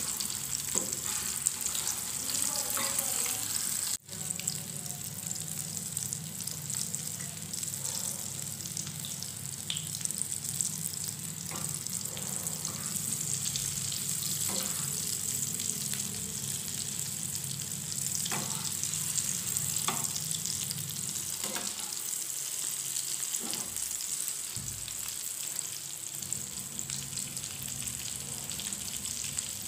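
Chicken kababs shallow-frying in hot ghee in a metal frying pan: a steady sizzle. A few light clicks and scrapes come from the metal slotted spatula as the kababs are turned. The sound drops out for an instant about four seconds in.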